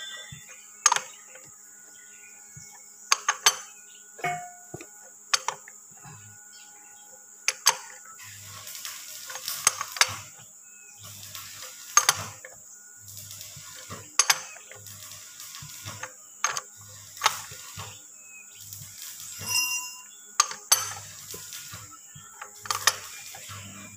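Sharp metallic clicks, one every second or two, from a long-handled socket wrench turning the pinion nut of a differential.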